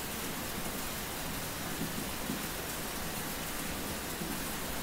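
Steady, even hiss of background noise with no distinct events, the same hiss that runs under the narration on either side.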